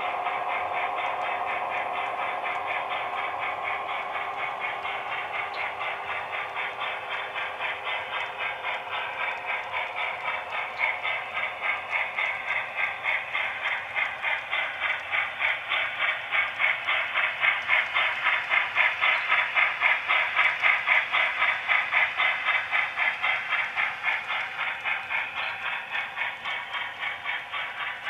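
H0 scale model freight train rolling past: its metal wheels click rapidly and evenly over the rail joints. The clicking grows louder as the cars pass closest, about two-thirds in, then eases. A thin motor hum from the locomotives is heard at the very start.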